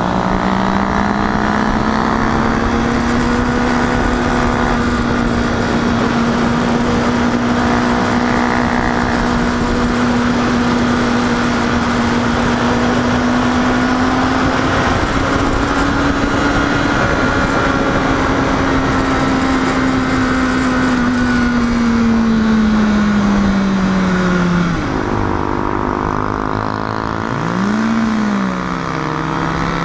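Sport motorcycle engine running at a steady cruising pitch, with wind noise from the ride. About 24 seconds in the engine note drops away as the bike slows; near the end it gives a short blip up and down before climbing again.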